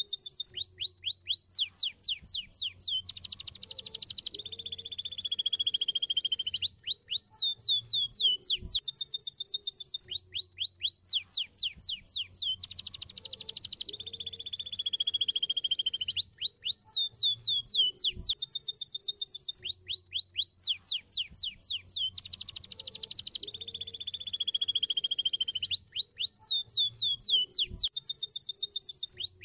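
Domestic canary singing: rapid trills of quick repeated chirps alternating with a long drawn note that falls slightly in pitch. The same song phrase repeats about every ten seconds.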